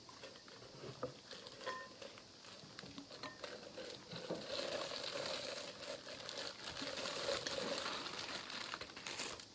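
Packaging crinkling and rustling as an unboxed item is handled and unwrapped. Scattered light clicks and taps come first, then steadier crinkling for the last five seconds or so.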